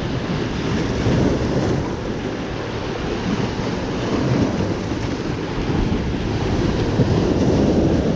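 Sea surf washing over shoreline boulders, mixed with wind buffeting the action camera's microphone as a steady low rumble.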